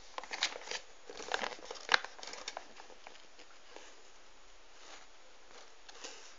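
Glossy paper leaflet crinkling and rustling as it is unfolded and handled: a flurry of sharp crackles in the first couple of seconds, the loudest just before two seconds in, then only faint rustles.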